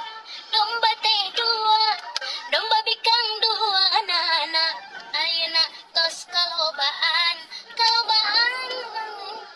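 A song: a high female voice sings over music, its pitch wavering, and fades near the end.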